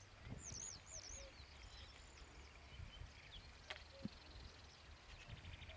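Quiet meadow ambience: small birds chirping, with a few quick descending high chirps about half a second in and a faint high trill in the middle, over a steady low rumble and a couple of faint clicks.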